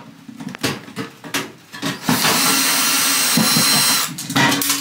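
Makita 18V cordless drill driver running at speed for about two seconds, from about two seconds in, unscrewing a fixing from a microwave's back panel. Light knocks and clicks come before it.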